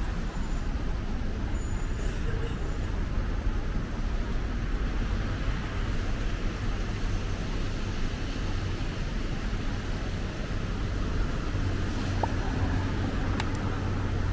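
City street traffic on wet roads: a steady wash of motor vehicles running past. An engine's low hum grows stronger in the last few seconds, and a few faint clicks come near the end.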